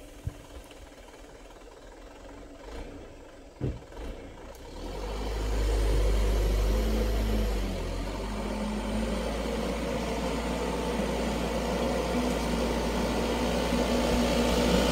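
Diesel engine of a loaded Mitsubishi Fuso dump truck pulling along a dirt road. Its low rumble comes in about five seconds in and keeps getting louder as the truck approaches.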